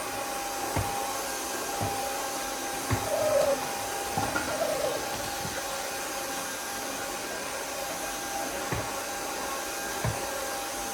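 Roidmi Neo cordless wet-dry vacuum running steadily while mopping a laminate floor: an even motor rush with a constant whine, and a few light knocks as the head is pushed back and forth.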